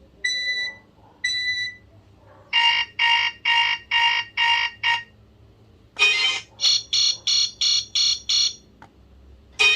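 BlackBerry Curve 8900 alert tones: two clear high beeps, then a run of about six pulsed beeps at roughly two a second. After a pause comes a short burst and another run of quicker buzzy pulses. A musical ringtone starts right at the end.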